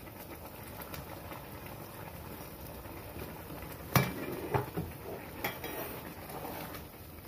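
Wooden spoon stirring sweet rice in a metal pot. About four seconds in the spoon knocks sharply against the pot, followed by a few lighter taps.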